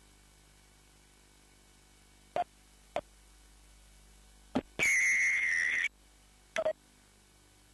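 Referee's whistle blown once in a single steady, high blast of about a second. Short, sharp knocks come before and after it.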